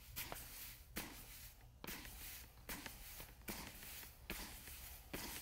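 Coarse quartz aggregate being hand-broadcast onto wet MMA resin primer: short rustling hisses of grains landing, about one every second.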